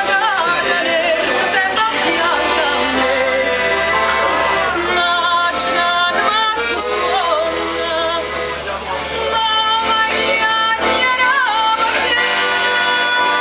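A woman singing with vibrato over accordion accompaniment.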